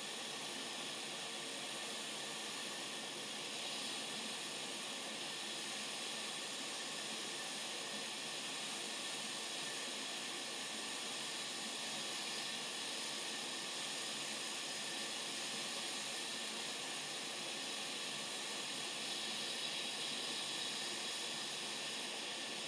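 Steady hiss of air from a hot air rework station nozzle, blowing on a chip to melt its solder so it can be lifted off the board.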